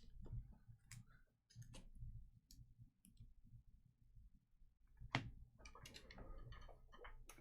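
Trading cards being handled and sorted on a table: faint scattered clicks and taps, with a sharper click about five seconds in and a brief flurry of small handling noises after it.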